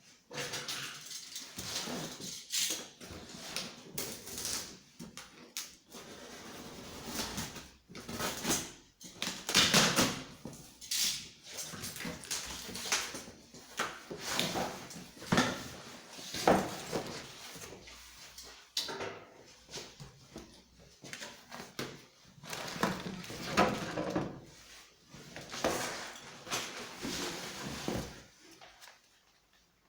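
Irregular knocks, scrapes and rustles of objects being handled in a small room, with no engine running.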